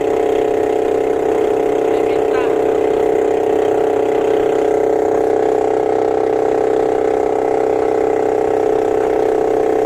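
The engine of a small motorized wooden boat (banca) running at a steady pitch and level while the boat moves across the river.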